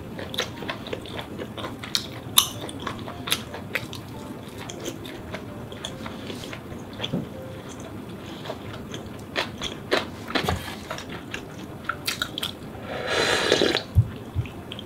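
Close-miked eating: chewing with many short sharp clicks and smacks. About 13 seconds in comes a long slurp as ramen broth is drunk from the pot.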